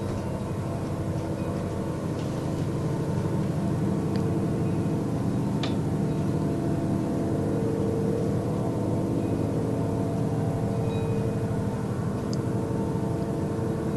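A steady low drone made of several held tones, running without a break. The recordist says it sounds like an airplane but does not believe it is one, because it went on for hours.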